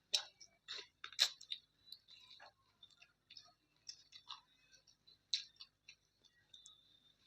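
Close-miked eating sounds: a person chewing with irregular wet mouth clicks and smacks, the sharpest two just after the start and about a second in.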